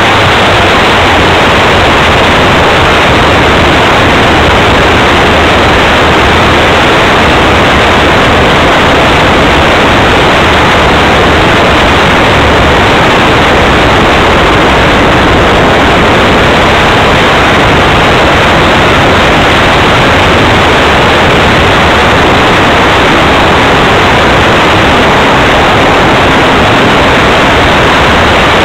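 Loud, steady rushing noise from wind and the spinning propeller of a radio-controlled RV-4 model plane in flight, picked up by a small camera mounted on its wing.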